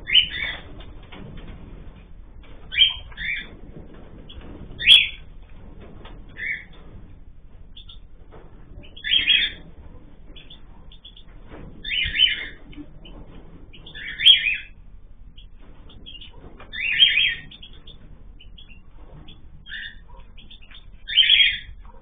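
Cockatiels calling: about a dozen short, loud calls, one every one to three seconds.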